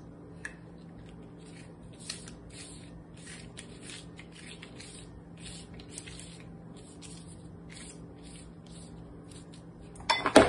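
Pastry brush swishing across phyllo dough sheets, dabbing on melted butter in short repeated strokes, about two a second. A brief louder clatter near the end.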